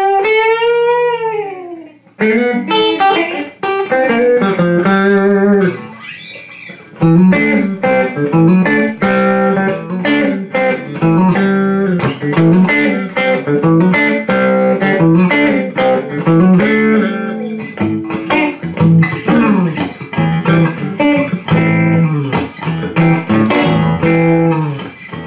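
Electric guitar played through a hand-built 5E3 Fender Deluxe-style tube amplifier and speaker cabinet: single notes and chords with a real barky tone. It opens with a note sliding down in pitch and briefly goes softer about six seconds in.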